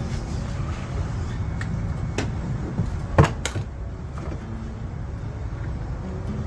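A few sharp knocks and clicks of parts being handled and fitted, the loudest about three seconds in, over a steady low rumble.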